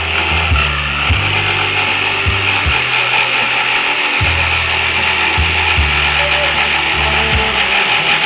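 Electric jigsaw running steadily, its reciprocating blade cutting wood.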